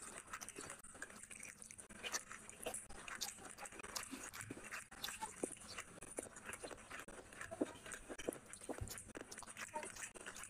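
Close-miked chewing and wet mouth smacking of a person eating curry and rice with bare hands: a steady run of short, sticky clicks and smacks, with fingers squelching through rice on the plate.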